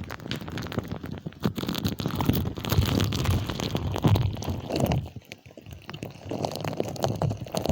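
Green slime being pushed, squeezed and scratched close against a microphone: wet squelches, sticky pops and small crackles, easing off for about a second past the middle before picking up again.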